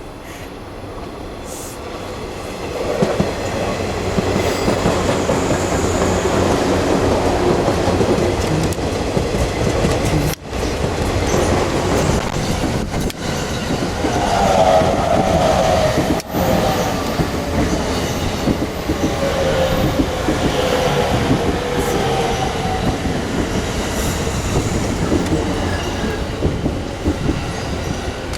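A train running alongside the platform, its wheels clattering on the rails in a loud, sustained rumble that swells over the first few seconds, with a whine that falls in pitch partway through.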